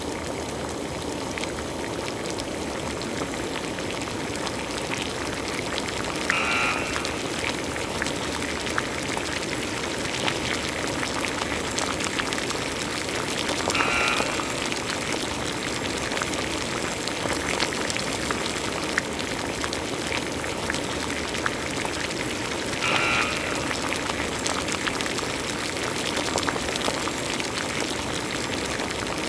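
Steady rain-like hiss of noise, with three short, brighter bursts about a quarter, halfway and four-fifths of the way through.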